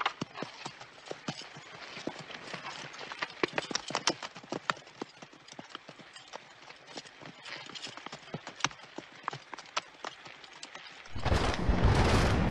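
Horses walking, their hooves clip-clopping irregularly, several strikes a second. About eleven seconds in, loud music cuts in suddenly.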